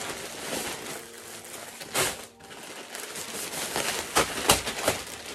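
Plastic mailer bag and plastic-wrapped clothing crinkling and rustling as items are pulled out, with sharper crackles about two seconds in and again near the end.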